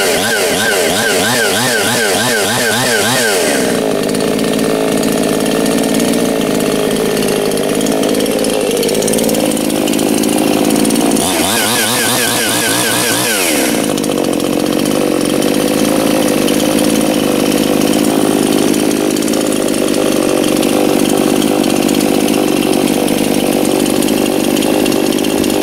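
Anbull 52cc two-stroke chainsaw running on its first start, being broken in. It revs up in rapid pulses for about three and a half seconds, then settles to a steady idle. It revs in pulses again for a couple of seconds around the middle, then drops back to idling.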